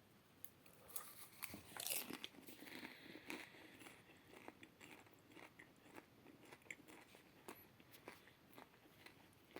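A person eating ready-popped bagged butter popcorn: faint, irregular crunching and chewing with many small crackles.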